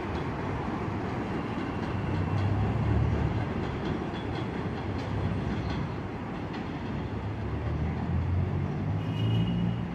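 New York City subway train running on the elevated Jamaica Line structure: a steady rumble that swells twice, with a brief high wheel squeal near the end.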